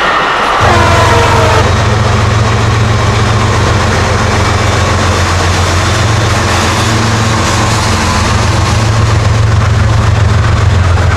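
LIRR DM30AC diesel locomotive departing with its train: the horn trails off with a falling pitch in the first second or so, then a steady deep engine drone under load, with the rumble of the train over the rails.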